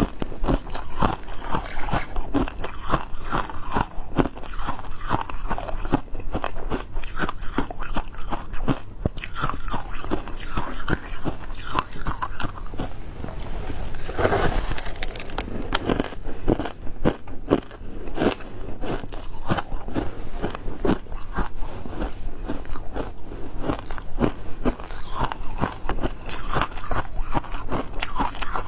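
Close-up crunching and chewing of shaved ice: a dense, continuous run of crisp crunches as packed ice is bitten off a spoon and chewed, with a longer, louder crunch about halfway through.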